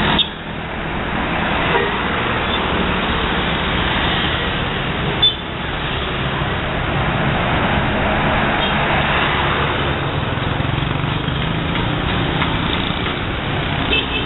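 Steady road and engine noise of buses driving past. A brief horn blast sounds right at the end.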